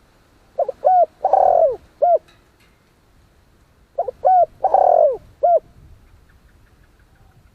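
Spotted dove cooing: two phrases, about three seconds apart, each of several short coos with a longer, louder coo in the middle.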